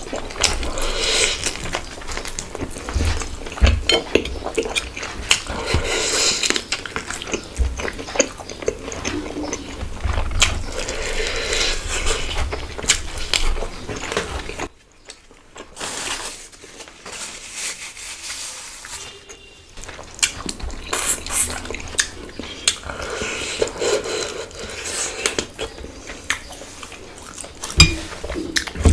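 Close-miked eating sounds: chewing and mouth noises while fingers mix and scoop bhuna khichuri on a plate, with many small clicks and clinks against the dish. It goes quieter for several seconds about halfway through.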